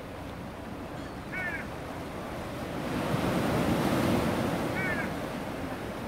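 Sea surf washing in, swelling to a louder rush around the middle. Gulls give two short calls, one a little over a second in and another near the end.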